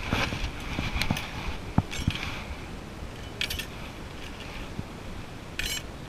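Handling noise as a fish is taken out of a landing net by hand: a few short scratchy rustles and sharp clicks over a low steady rumble.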